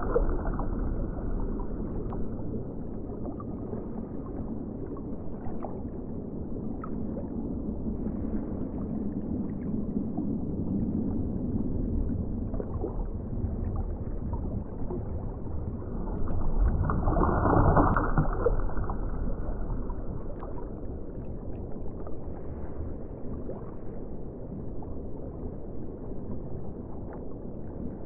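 Underwater ocean ambience: a steady muffled water rumble, with a wave surge swelling up about seventeen seconds in and fading again, and a few faint scattered ticks.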